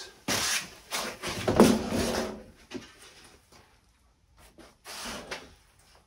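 Handling noise as foam packing blocks are pulled from a cardboard box and set on a steel workbench: rustling, scraping and knocks, loudest in the first two seconds, with a shorter bout about five seconds in.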